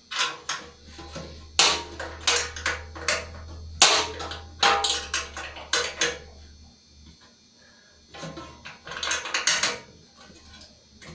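Hand wrench tightening the steering column mounting bolts on a John Deere 111 tractor: quick irregular metal clicks and clinks, several a second, thinning out about two-thirds of the way through, over a low hum that stops at about the same point.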